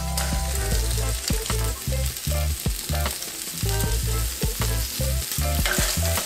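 Chopped bacon frying in a hot pan with a steady sizzle, and a utensil stirring it, clicking and scraping against the pan many times.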